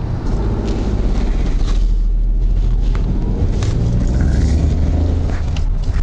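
Inside the cabin of a Honda N-ONE RS, its small turbocharged three-cylinder engine and road noise make a steady low rumble as the car drives off, with the engine note rising and falling about halfway through.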